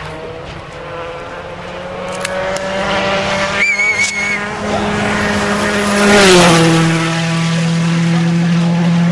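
Rally car engine running at high revs as the car approaches and passes close by about six seconds in, the pitch dropping as it goes past, then pulling away. A brief high wavering squeal comes about four seconds in.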